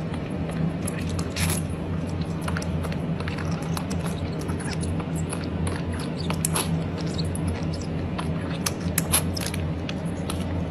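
Puppy suckling milk from a feeding bottle: irregular wet clicks and smacks over a steady low hum.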